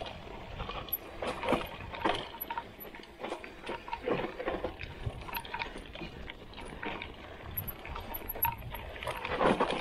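Trek Roscoe 7 mountain bike rattling over rough trail: irregular clatter and knocks from the chain and frame, over a low rumble of tyres on dirt.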